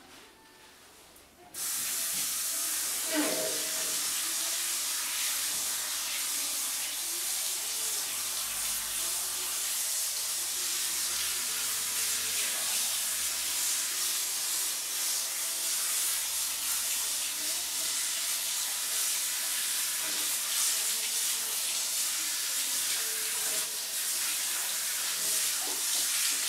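Water spraying from a hairdresser's hand shower at a backwash basin, rinsing a client's hair. The steady hiss starts abruptly about a second and a half in.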